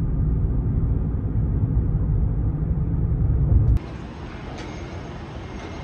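Steady low rumble of a car driving, road and engine noise. About four seconds in it cuts suddenly to quieter outdoor street noise, an even hiss with a few faint clicks.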